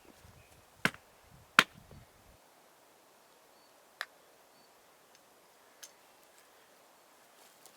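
Wood being chopped: three sharp strikes, a little under a second in, about a second and a half in (the loudest) and about four seconds in, then a fainter knock near six seconds.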